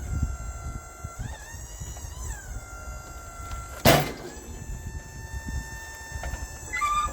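Wood-Mizer portable sawmill running, its engine pitch dipping and rising every second or so over a low rumble. One sharp, loud bang about four seconds in.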